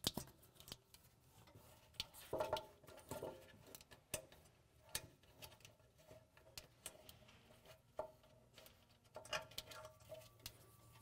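Faint, scattered clicks and light rattles of a plastic wiring-harness connector and its wires being handled and unplugged, with a few sharper clicks now and then.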